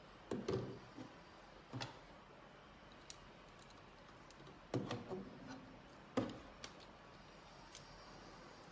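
A few scattered plastic clicks and knocks from handling a small jacket cooling fan and its cable, with a couple of louder knocks about five and six seconds in.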